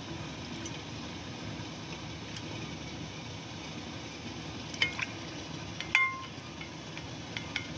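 Steady hiss of a steamer pot of boiling water as batter is ladled into a hot glass dish inside it, with a few sharp clinks of the ladle. The loudest clink comes about six seconds in and rings briefly.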